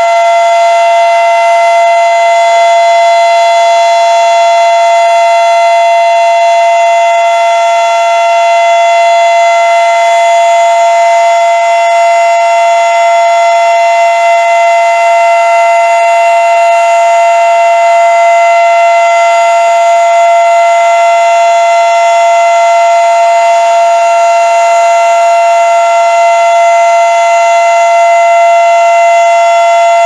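Fedelcode Model 5 outdoor warning siren sounding its full alert tone in a test: a loud, steady two-note chord held at an unchanging pitch, with no rise or fall.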